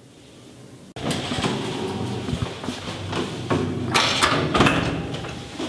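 Lift doors being opened and shut: a sudden rattle about a second in, then clattering and sharp clunks over a steady low hum, loudest near the middle.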